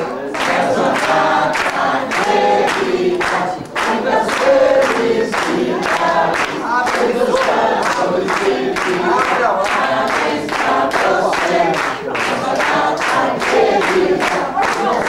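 A group of family voices singing a birthday song together, with hands clapping steadily in time, about two to three claps a second.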